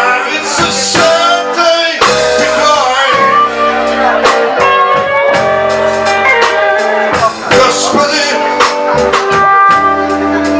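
Live blues-rock band playing: electric guitars and a drum kit, with a harmonica wailing over them.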